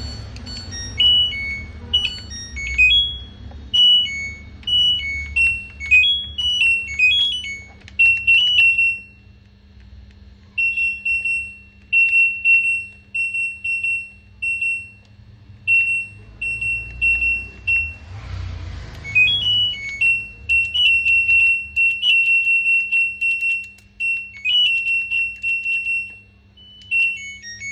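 Electronic control-panel beeps of an LG front-load washing machine: quick melodic runs of high beeps, then a string of single beeps about twice a second, then more melodic runs, over a steady low hum. These are the panel's button and power tones, a sign that the switches on the repaired control board respond.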